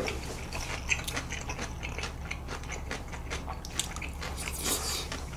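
Close-up chewing of a mouthful of chewy jjolmyeon noodles: a run of irregular wet smacks and mouth clicks.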